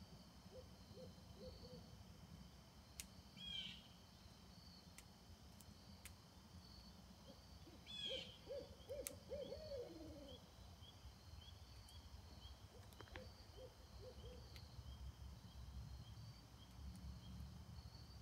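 Barred owl hooting faintly, in short runs of hoots: a few about half a second in, a longer run about eight seconds in whose last note slides down, and a few more about thirteen seconds in. A short high chirping call cuts in twice, a few seconds in and again with the long run of hoots.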